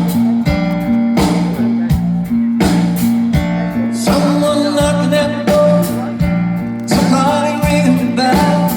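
Live rock band playing with drums on a steady beat under bass and guitar. A voice starts singing about four seconds in.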